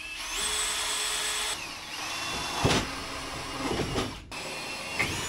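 Cordless drill spinning up with a rising whine and running steadily on a fiberglass housing, with a sharp knock about two and a half seconds in. It stops a little after four seconds.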